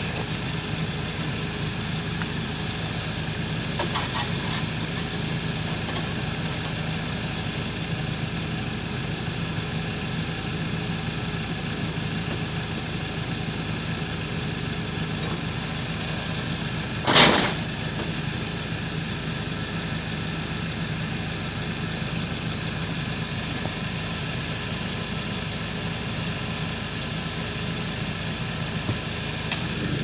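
Ford Transit 2.2 diesel engine idling steadily, with a steady high-pitched whine, its turbocharger failing with excessive shaft play. A brief loud knock about seventeen seconds in.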